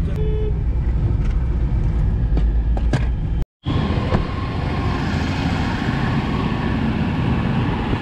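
Car on the move, heard from inside: steady engine and road rumble. A short break a little over three seconds in, after which the road noise carries more hiss.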